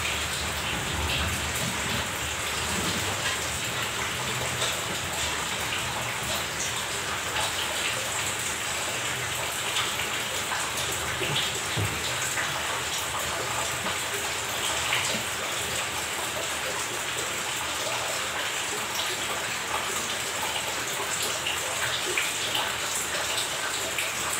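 Steady rushing, splashing water with small scattered clicks.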